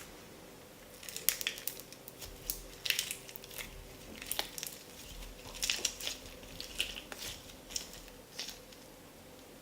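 Homemade slime being squished and poked by hand, giving irregular sticky clicks and pops that start about a second in and stop near the end.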